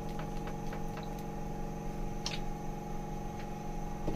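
Chicken yakhni soup boiling in a pan: scattered short bubbling pops over a steady hum, the loudest pop about two seconds in.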